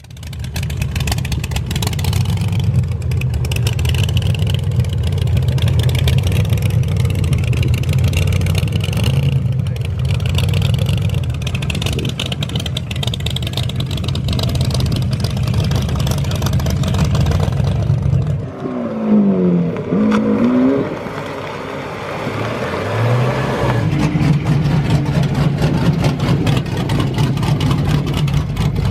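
Car engines rumbling loudly at idle, with a couple of quick revs rising and falling about two-thirds of the way through, then settling back to a deep idle.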